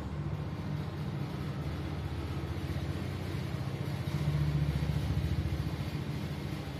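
A motor vehicle engine running, a steady low throb that swells a little about four seconds in.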